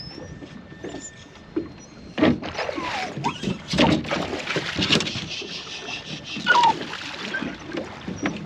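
Irregular splashing and sharp knocks around a small fishing boat as a large pike is handled at the boatside, with a few short squeaky chirps among them.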